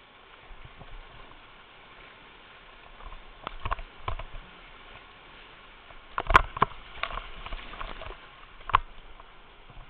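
Whitewater rushing around a plastic kayak in a rapid, with sharp knocks and slaps of water and paddle against the boat scattered through it. The loudest hit comes about six seconds in, among a cluster of them.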